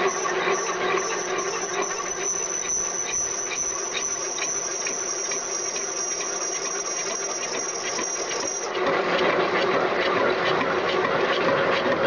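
CNC vertical lathe turning a steel flange, its running and cutting noise carrying a steady high-pitched whine. The whine cuts off suddenly about two-thirds of the way through, and the machine noise then gets louder.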